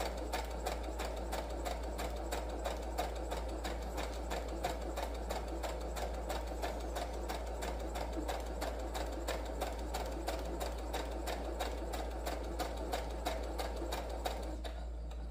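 Electric sewing machine stitching a quilt-block seam at a steady speed: an even, rapid run of needle clicks over the motor's hum, stopping near the end.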